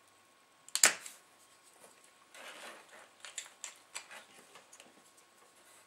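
Spring-loaded desoldering pump (solder sucker) firing with a single sharp snap about a second in, sucking molten solder off a pad. A short scrape and a run of small clicks and taps follow as the pump is handled.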